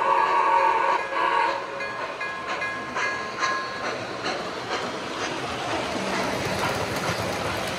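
O gauge model New York Central Hudson steam locomotive's whistle sounding for about the first second and a half, followed by a few short tones and clicks. Then the steady rolling of the passenger cars' wheels on the track as the train passes.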